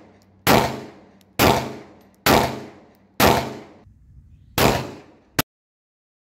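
Glock 34 9mm pistol fired five times in slow fire, about a second apart with a longer pause before the last, each shot a sharp crack that rings off briefly; the first shots come from the GR8-ported slide. A short sharp click follows the last shot.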